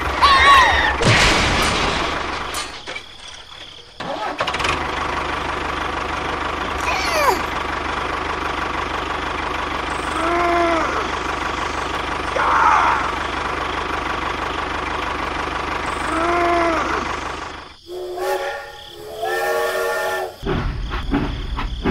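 Tractor engine sound running steadily under a toy tractor, broken by a few short squeaky calls that rise and fall. Near the end a horn-like tone sounds twice.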